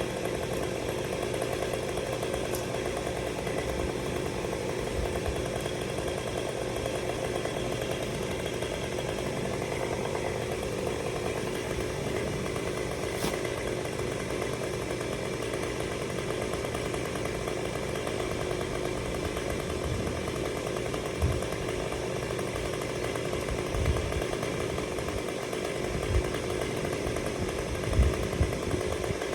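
Chainsaw running steadily, with a few dull thumps in the last third.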